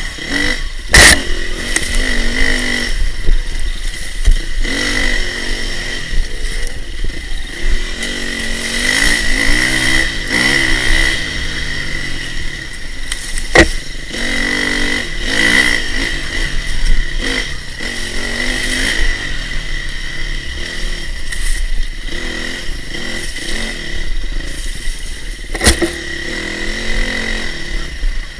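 Dirt bike engine revving up and down as it is ridden hard along a trail, heard up close from the rider's helmet, with a few sharp knocks, one about a second in, one around the middle and one near the end.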